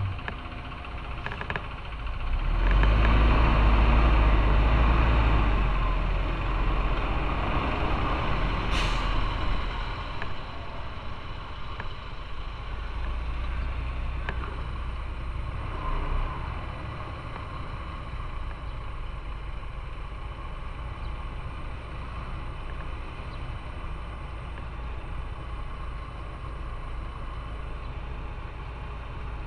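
Motorcycle on the road: engine and road noise, a heavy low rumble swelling for a few seconds near the start, then running steadier and quieter. A short, sharp hiss comes about nine seconds in.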